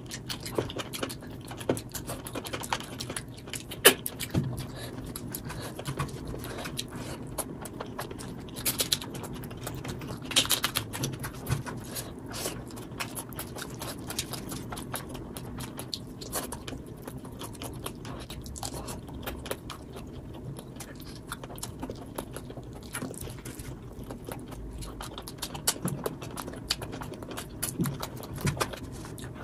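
Close-up eating sounds sped up to double speed: chewing of rice and chicken and a bare hand squishing and mixing rice with curry on a plate. A dense run of small clicks and smacks, with a few louder ones scattered through.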